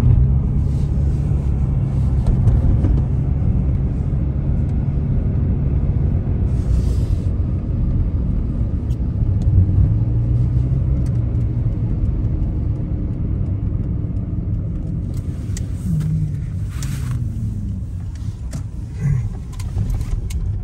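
Car engine and road noise heard from inside the cabin while driving: a steady low rumble that eases a little in the last few seconds, with a few light clicks near the end.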